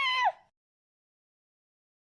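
The end of a baby's wailing cry, wavering in pitch, that cuts off abruptly a moment in, followed by dead silence.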